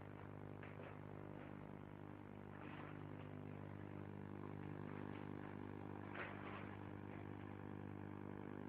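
A steady low hum made of several even tones, with a few faint brief noises over it, the clearest about three and six seconds in.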